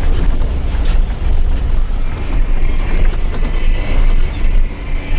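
Isuzu Giga truck's diesel engine and drivetrain rumbling low and steady while driving, heard from inside the cab, with light clicks and rattles over it.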